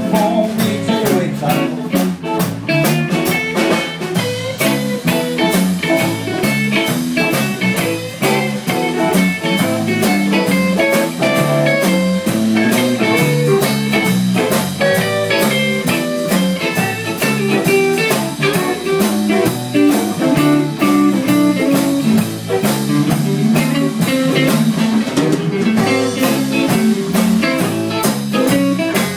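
Live blues band playing an instrumental stretch: several electric guitars through amplifiers over a steady drum kit beat.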